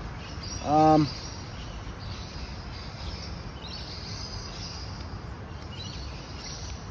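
A short hummed "mm" from a person's voice about a second in, then a long pause filled by steady background noise with faint high chirping.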